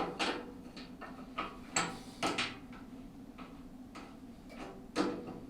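Irregular sharp clicks and knocks of metal parts and hand tools being handled while adjusting the bandsaw's blade guide rollers, the loudest knock about five seconds in, over a faint steady hum.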